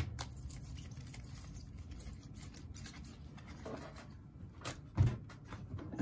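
A trading card in a hard plastic case being handled and set down on paper on a desk: a sharp knock at the start, faint light knocks, and a low thump about five seconds in.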